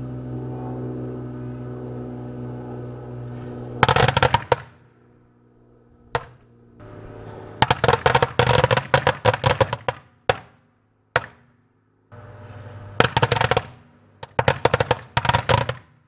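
Kenmore microwave oven humming as it runs, then from about four seconds in firecrackers going off inside it: rapid strings of sharp cracks in several bursts, with short gaps between them.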